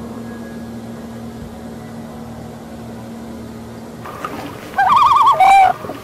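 Common loon giving a tremolo call about five seconds in: a loud, fast-quavering call for about a second, ending in a short held note. Before it, a steady low hum.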